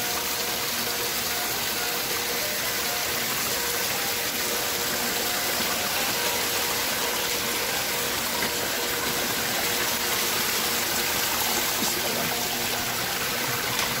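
Small forest waterfall: water pouring over rocks in a steady, even rush.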